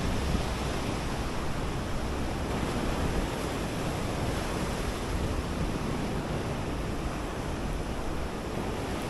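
Steady wash of ocean surf on the beach, with wind rumbling on the microphone.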